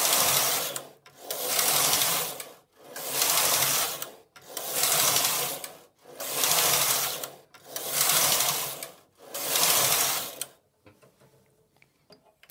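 LC2 lace carriage being pushed back and forth across the needle bed of a Silver Reed punchcard knitting machine to transfer stitches for the lace pattern. Each pass is a rasping slide of about a second and a half with a brief pause at each turn, seven passes in all. It stops about ten seconds in, followed by faint handling as the yarn is re-threaded.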